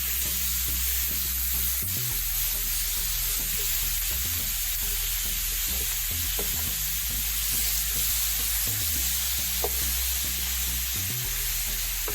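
Ground beef sizzling in a hot frying pan, a steady hiss, with a few faint clicks.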